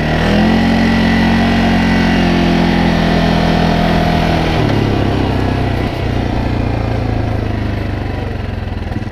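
2021 CFMoto CForce 600 Touring ATV's single-cylinder engine running under way, rising slightly in pitch at the start and holding steady, then dropping to a lower pitch about four and a half seconds in.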